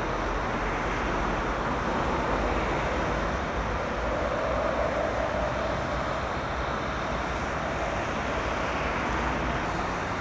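Steady motorway traffic noise: cars and lorries passing on a wet, slushy carriageway, a continuous hiss of tyres on the wet road.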